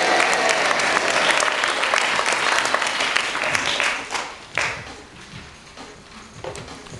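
Audience applauding, loud and dense for about four seconds, then dying away.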